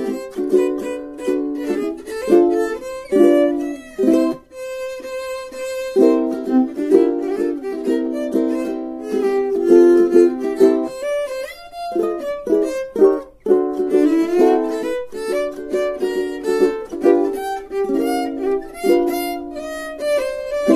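Instrumental music without vocals: a melody of quick short notes with a few longer held notes.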